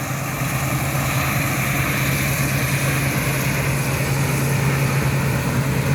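Combine harvester running close by while harvesting oats: a steady low engine hum under a dense, even rush of machinery noise, growing slightly louder in the first second.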